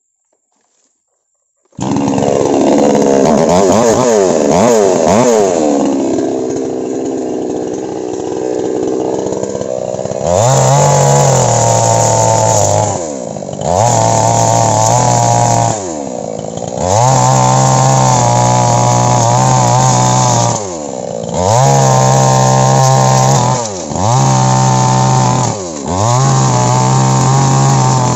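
Two-stroke chainsaw comes in suddenly about two seconds in and runs with wavering revs. It is then revved to full throttle in six bursts of two to three seconds each, the revs dropping back between them, as it cuts through the frond bases of an oil palm.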